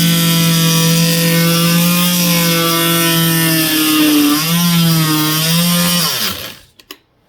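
Warrior 2-amp corded oscillating multi-tool running with a steady, loud buzz, its pitch sagging briefly about four seconds in, then switched off and winding down about six seconds in, followed by a couple of short clicks.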